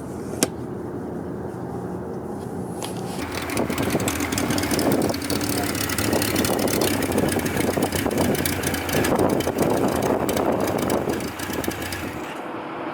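Motorcycle engine running, getting louder about three seconds in.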